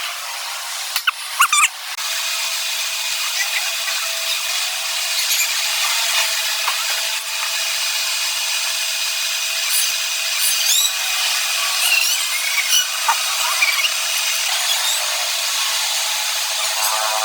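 Lathe grinding teeth into metal: a steady gritty hiss with several high whining tones. A few sharp clicks come about a second in, and brief squeals around the middle.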